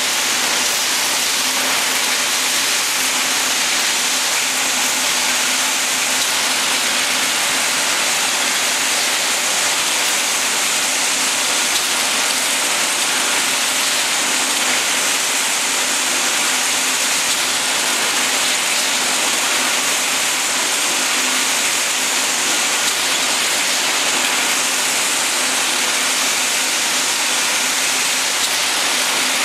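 Automatic rebar straightening and cutting machine running: a loud, steady whirring hiss from its rotating straightening drum as the wire feeds through, with a faint steady hum underneath.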